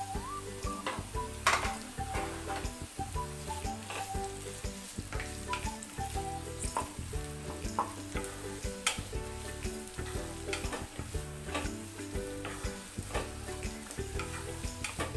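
Chopped onions sizzling in hot oil in a frying pan, stirred with a wooden spatula that gives irregular knocks and scrapes against the pan.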